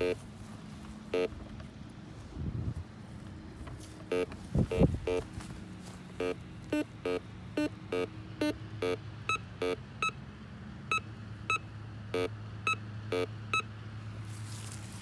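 Metal detector giving a string of short electronic beeps as its search coil is swept over the ground: target tones from metal in the soil. The beeps come sparsely at first, then about two a second in the second half. A dull knock about halfway through is the loudest sound.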